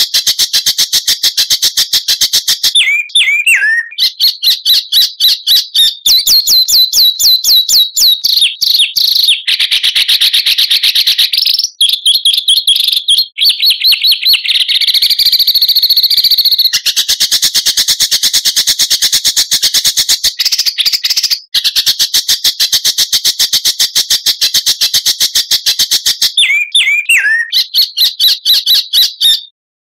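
Recorded songbird song used as masteran (song-tutoring audio for cage birds): fast, tightly packed trains of high repeated notes, broken twice by short swooping calls. It cuts off abruptly near the end.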